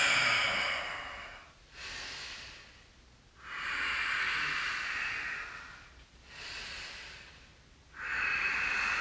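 A man breathing deeply and audibly: three long, louder breaths alternating with two shorter, quieter ones, paced slowly through the held yoga stretch.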